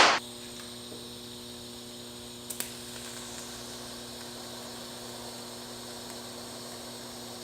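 Steady electrical hum with several even tones, with one brief click about two and a half seconds in.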